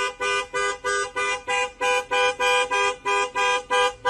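Horn beeping in rapid, even toots, about three a second, in the repeating pattern of a car alarm.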